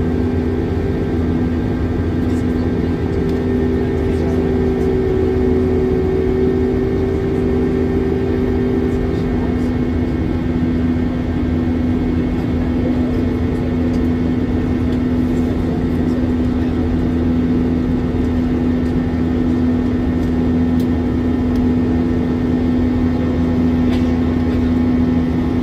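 Airbus A321 cabin in climb, heard from over the wing: the IAE V2500 turbofans run with a steady rumbling drone and a constant low hum, and a second, higher engine tone fades out about nine seconds in.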